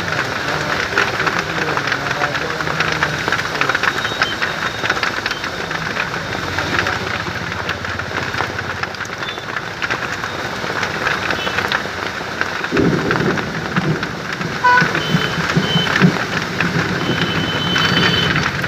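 Heavy rain pouring steadily: a dense hiss of falling water with many small drop ticks. About two-thirds of the way in, a lower uneven rumble joins it.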